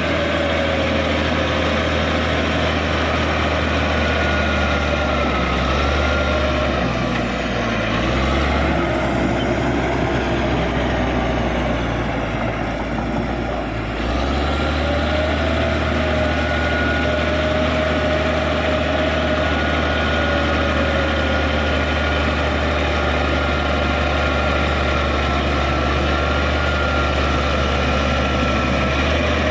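Caterpillar D6G bulldozer's diesel engine running steadily, with a whine over it that wavers in pitch. The engine note shifts between about seven and fourteen seconds in, then settles back to a steady run.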